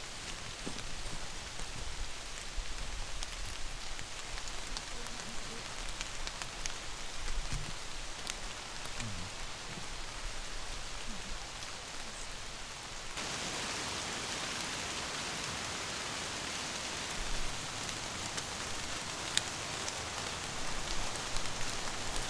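Steady rain falling, a continuous hiss of drops with a few sharper drips. About thirteen seconds in it changes abruptly to a denser, brighter, more even hiss.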